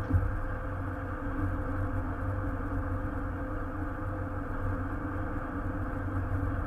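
Steady in-cabin drone of a 2005 Jeep Grand Cherokee cruising at highway speed: engine hum and tyre and road noise at an even level.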